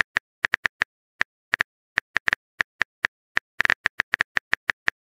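Phone keyboard typing clicks: a quick, uneven run of short clicks, one per key as a message is typed into a texting app.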